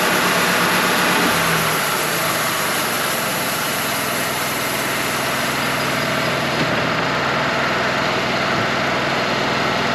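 Wood-Mizer LT35 portable band sawmill running steadily, with a low hum that fades and a slight drop in level about two seconds in.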